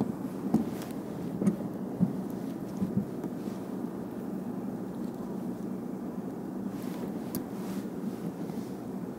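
Steady low rumble on open water, with four short knocks in the first three seconds as fishing tackle is handled in an inflatable boat, and a few faint ticks near the end.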